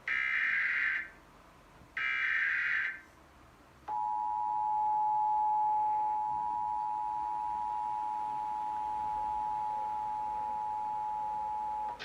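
Emergency Alert System activation: the last two of three short, buzzy SAME digital header bursts, about a second each and a second apart, then the EAS two-tone attention signal (853 and 960 Hz together) held steady for about eight seconds before cutting off. Together they mark the start of an emergency alert broadcast, here a tornado warning.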